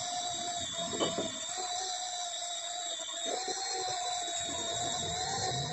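A motor whining steadily at an even pitch, with a short knock about a second in and another about three seconds in.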